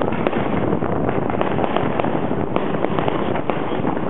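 Fireworks going off: a steady, dense stream of sharp cracks and pops with no break.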